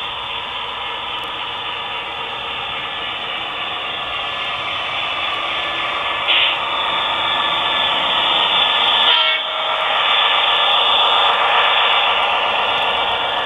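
Model Union Pacific E6 diesel passenger train running past, a steady running drone that grows louder as it approaches, with a short sharper burst about six seconds in and a brief dip about nine seconds in.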